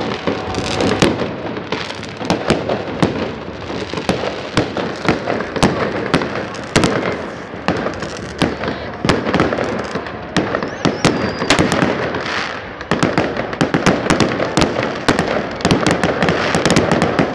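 Aerial fireworks and rockets going off in quick succession: a dense, continuous run of sharp bangs and crackles.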